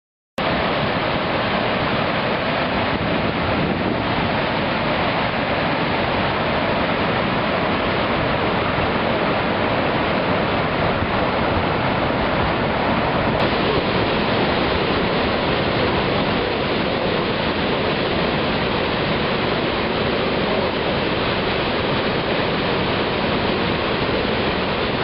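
Athirappilly waterfall: a large falls' water pouring and crashing as a steady, loud rush that cuts in sharply about half a second in.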